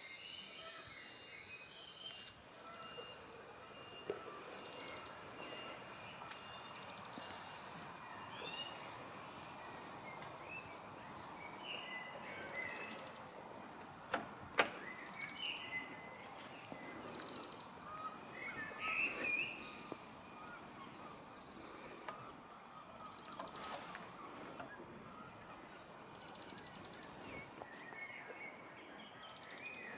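Birds chirping and singing, many short calls scattered over a steady outdoor background hiss, with one sharp click about halfway through.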